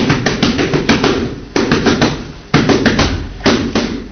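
Boxing gloves smacking focus mitts in rapid flurries of punches, several hits a second, each flurry starting again with a sharp burst about once a second.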